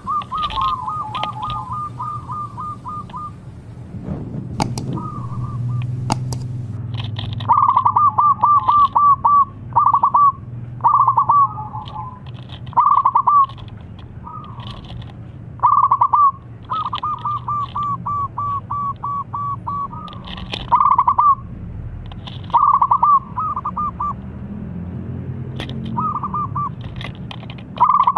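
Zebra dove (perkutut) cooing: repeated phrases of quick, rolling coo notes, some short and some running on for two or three seconds, with brief pauses between. A steady low hum runs underneath.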